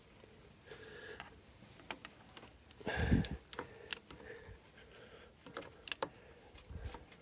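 Scattered clicks and clinks of metal hand tools: a socket and universal joint being fitted and worked on a motorcycle cylinder barrel nut, with a louder knock about three seconds in.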